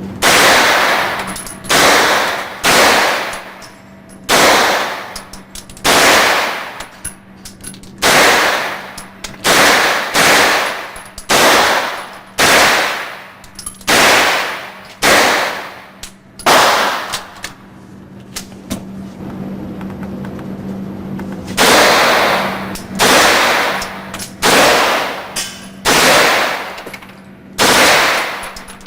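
9mm MP5 submachine gun fired as single shots, about twenty in all at roughly one a second, each with a short echoing tail, with a pause of about four seconds midway.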